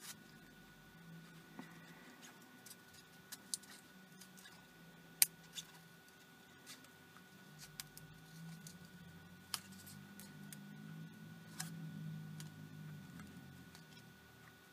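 Faint handling noise: scattered light clicks and soft rubbing as fingers fit a strip of plastic diffuser sheet around an image intensifier tube, over a faint steady tone. The low rubbing is strongest in the second half.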